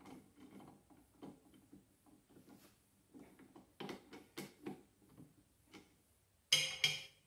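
Small metal clicks and taps from a drill press's keyed drill chuck being twisted by hand around a drill bit. A louder, short metallic clank near the end.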